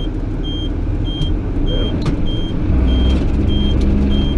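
JCB Fastrac 8250 tractor engine running, heard from inside the cab, with a high electronic warning beep repeating about every 0.6 s. About two and a half seconds in, the engine gets louder and settles into a steadier hum as it takes up more power.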